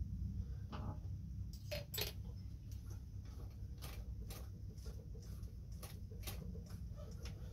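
Faint, irregular light clicks and ticks from the mechanism of a class 15 sewing machine as its handwheel is turned by hand while it is being oiled, over a steady low hum.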